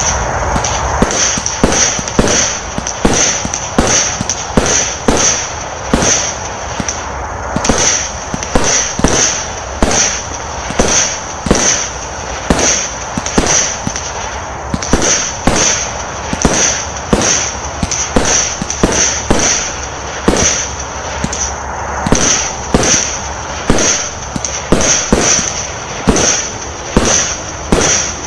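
Vivid Pyrotechnics W.T.F. Mini, a 64-shot, 20 mm firework cake, firing shot after shot at an even pace of about two a second, each shot a sharp bang.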